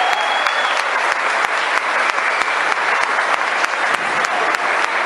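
Audience clapping, dense and steady, that cuts off abruptly near the end.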